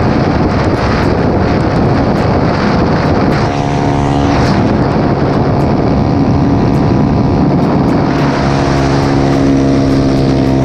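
Single-cylinder 150 cc motorcycle engine fitted with a 190 cc big-bore kit, running hard while riding. A dense rushing noise covers it at first; about three and a half seconds in the engine note comes through clearly and holds at steady revs.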